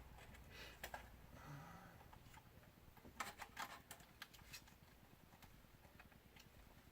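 Faint, scattered small clicks and taps from fingers handling a ribbon cable and its connector on a DJI Phantom 3 Pro camera gimbal, with a quick cluster of clicks about three to four and a half seconds in.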